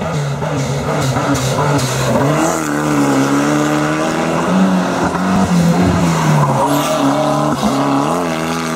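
Competition car engine revving hard under acceleration, its pitch climbing and falling back several times as it shifts through the gears.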